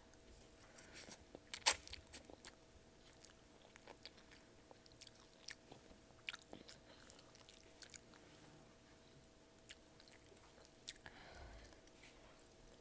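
Close-up mouth sounds of someone eating: irregular sharp clicks and crunches of biting and chewing, the loudest just under two seconds in.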